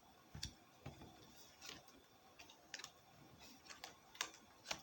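Faint, irregular clicks and light taps of fortune-telling cards being handled and laid down on a table, about ten in all.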